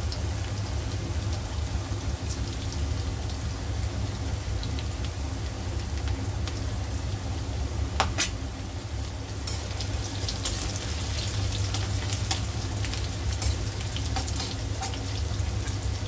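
Crushed garlic, dried red chillies and whole spices sizzling in hot mustard oil in a kadhai, with scattered crackles that grow more frequent in the second half and one sharp crack about halfway through. A low steady hum runs underneath.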